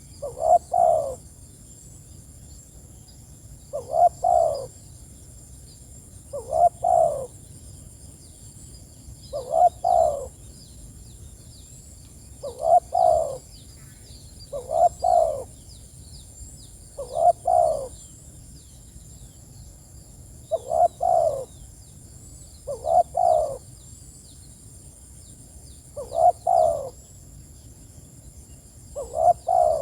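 Spotted dove (tekukur) cooing its calling song: a short phrase of a few low coos, repeated about every two to three seconds. Faint high chirps and a thin steady high tone run behind it.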